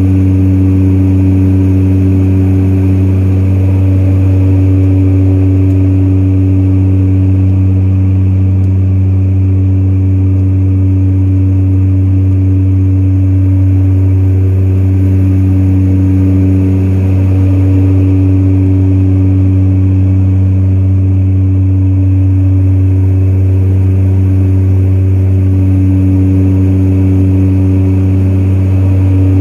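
Turboprop airliner's engine and propeller droning steadily in cruise, heard inside the cabin: a loud, deep hum with higher tones above it that slowly swell and fade every few seconds.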